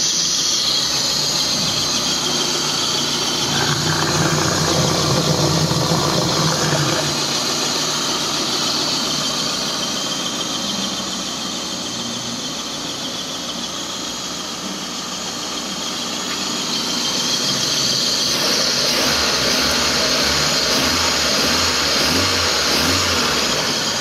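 Proton Wira's 4G15 four-cylinder engine running, with a steady high-pitched squeal over it.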